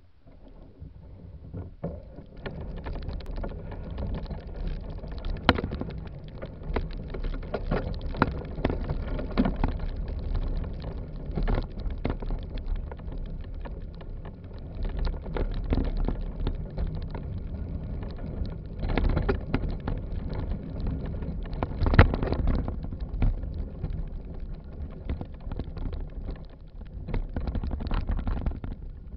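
Rumble and rattle of a bicycle-mounted camera riding over a bumpy dirt trail, with irregular knocks as the bike jolts over the rough ground. The noise builds over the first couple of seconds as the bike gets moving.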